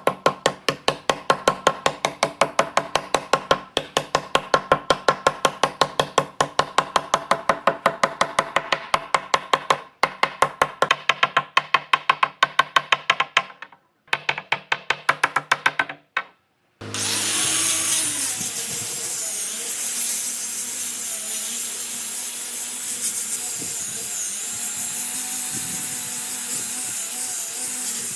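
Rapid, even strokes on wood, about four a second, in runs broken by short pauses. About 17 seconds in, a power tool starts and runs steadily.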